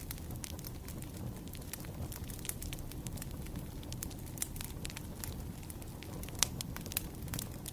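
Wood fire burning with a steady low rumble and frequent irregular crackles and pops, the sharpest pop about six and a half seconds in.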